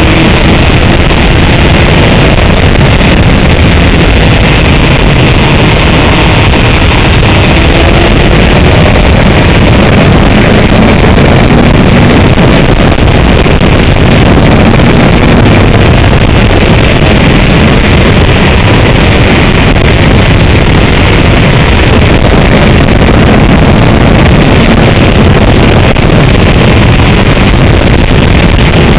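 Motorcycle ridden at speed, heard from an onboard camera: the Honda CBR 600's inline-four engine running under heavy wind noise blasting on the microphone, loud and overdriven, its pitch shifting a little with the throttle.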